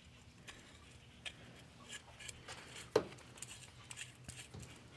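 A new catalytic converter being handled: a few faint metallic clicks and taps, the sharpest about three seconds in.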